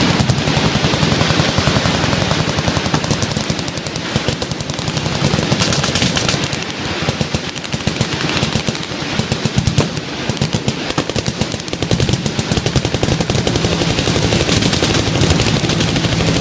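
Sustained full-auto machine-gun fire from many guns at once: a dense, unbroken stream of overlapping shots.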